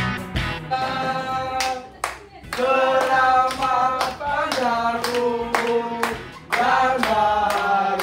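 A group of people singing a birthday song together and clapping along in a steady beat, about two to three claps a second.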